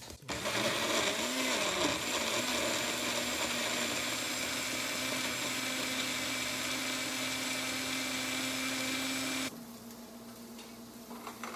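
Magic Bullet personal blender running, puréeing tomatillos and jalapeño or serrano chiles into a salsa. The motor starts right away, its pitch rises a little over the first couple of seconds, then it runs steadily and cuts off suddenly near the end.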